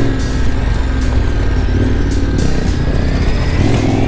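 KTM 1190 Adventure R's V-twin engine running under way on a gravel dirt road, a steady loud rumble with wind on the helmet microphone, rising a little in pitch near the end.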